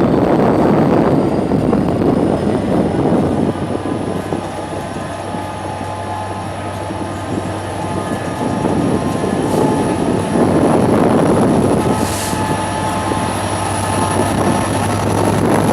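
Class 67 diesel locomotive's engine running steadily: a low, even drone under a broad rumble, with a faint high whine that creeps slowly upward.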